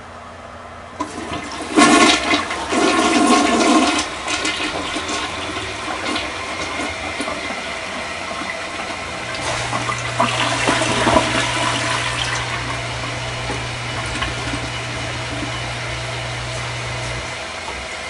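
Rushing water. It starts with a loud surge about a second in, then settles to a steady flow, and a low steady hum joins about halfway and stops near the end.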